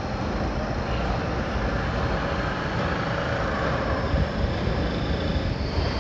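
Steady construction-site rumble and hiss: heavy machinery running in the distance, with no distinct knocks or tones standing out.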